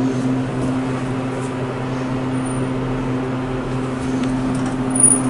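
Thyssenkrupp passenger elevator cab humming steadily as it runs, with a brief high-pitched beep near the end.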